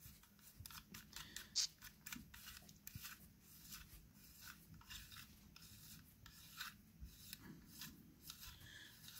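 Faint, irregular scraping and ticking of the knurled retaining collar on a Liberty Mystic X suppressor being unscrewed by hand, turn after turn, metal rubbing on metal threads. One tick about a second and a half in stands out above the rest.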